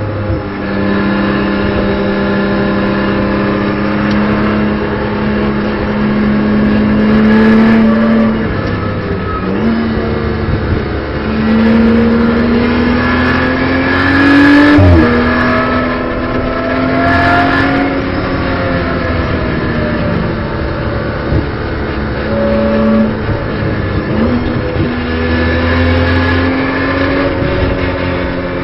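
BMW M240i Racing Cup's turbocharged straight-six heard from inside the car at racing speed, its pitch climbing slowly under load and dropping sharply at gear changes several times.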